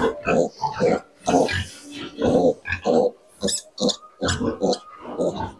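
Pigs grunting in a run of short, separate grunts, a few with a sharper, hissier edge about three and a half seconds in.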